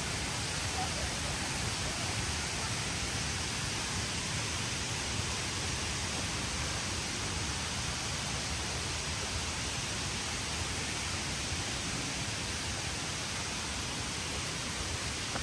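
Steady rush of a waterfall: an even, unbroken noise of water falling and churning.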